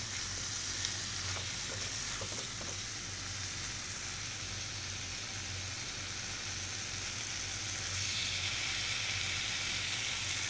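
Chicken pieces in a thick onion-tomato masala sizzling in a non-stick frying pan while being stirred with a silicone spatula. The sizzle is steady and grows a little louder about eight seconds in, over a low steady hum.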